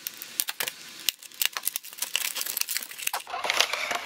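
Clear plastic packaging crackling and crinkling as it is opened by hand, many small sharp crackles. About three seconds in it turns into a denser, continuous rustle as the plastic tray slides out of its plastic sleeve.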